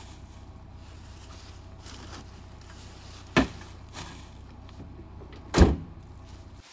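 Two sharp bangs about two seconds apart as a Jeep pickup is shut up, the second louder and deeper, over a steady low hum.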